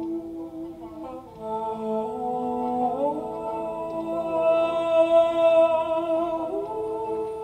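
Background music of slow, long-held notes in several layers, gliding to new pitches every second or two, with a hummed or sung quality.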